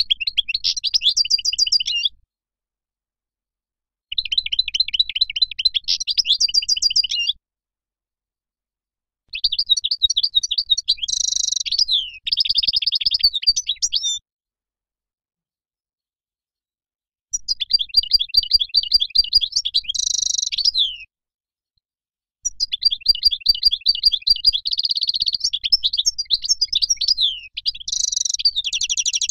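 European goldfinch singing: five bouts of quick, high twittering and liquid trills, each a few seconds long, separated by short silent pauses.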